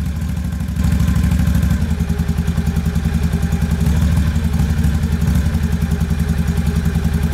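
Can-Am Outlander 570 XMR's V-twin engine idling rough and missing, with a pulsing exhaust beat. It is running on only one cylinder because of a fuel-fouled spark plug. It gets a little louder about a second in.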